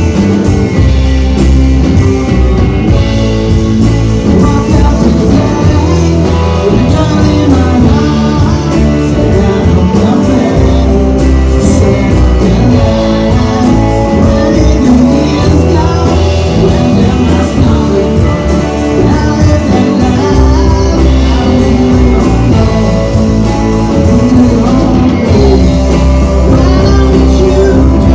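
Rock band playing live: electric guitars and drums, with a man singing lead vocals into a microphone.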